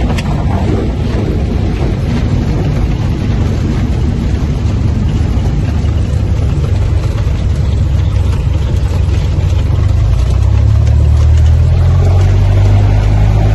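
Steady low rumble of a vehicle in motion, growing louder about ten seconds in.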